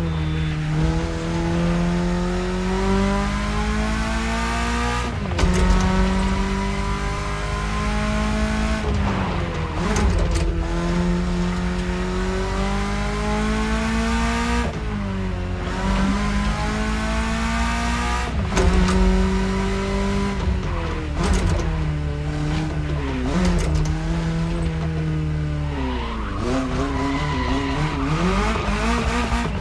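BMW E30 engine accelerating through the gears: the pitch climbs steadily and drops at each upshift, about every four to five seconds. After about twenty seconds the shifts come quicker and the engine note falls away as the car slows.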